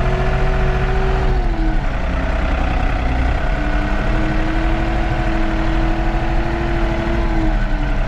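New Holland TN75S tractor's four-cylinder diesel engine running while driving. Its engine note drops about a second and a half in, picks up again around three and a half seconds, and drops once more near the end as the engine speed changes.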